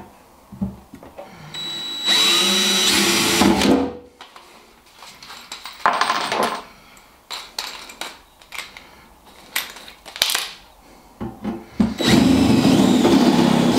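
Cordless drill boring through the steel lid of an ammo box, a pilot hole with a twist bit about two seconds in, then a step drill bit widening the hole near the end, with a shorter burst and clicks and knocks of handling in between.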